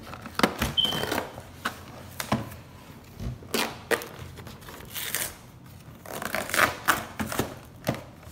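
Cardboard toy packaging being peeled open and handled by hand: irregular clicks, knocks and rustling as the box's flaps are pulled back.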